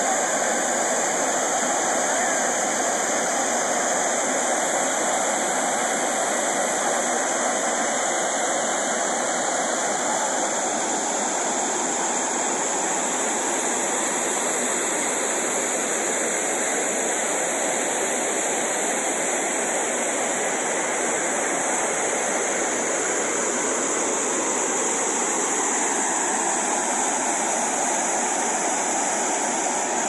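Steady rush of a waterfall's falling water.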